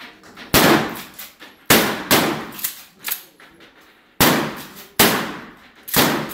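Five loud shotgun shots fired one after another at uneven intervals, under a second to about two and a half seconds apart, each with a short ringing tail.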